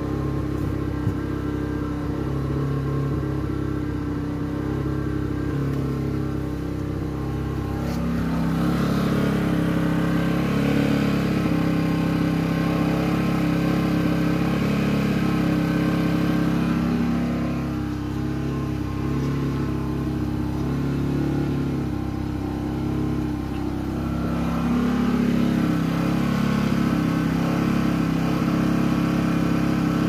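Scheppach SG1400i inverter generator running under the load of a 240-volt fridge, its engine speed drifting up and down. It gets a little louder from about eight seconds in.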